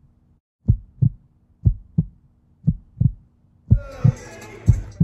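Heartbeat sound effect: deep double thumps, about one pair a second, over a faint low hum. Near the end, crowd noise comes in under the last beats.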